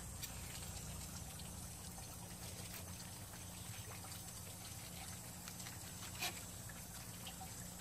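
Faint knife ticks and scrapes as a fish is filleted on a plastic cutting board, over a steady low hum and a soft trickle of water; one sharper knock about six seconds in.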